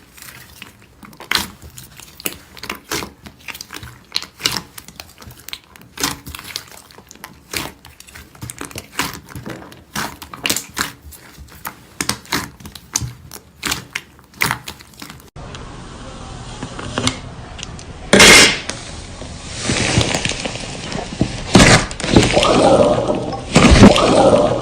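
Slime being squeezed and poked, making many quick sticky clicks and pops. About fifteen seconds in it changes to a louder stretch of wet squishing and slapping, with several sharp thuds.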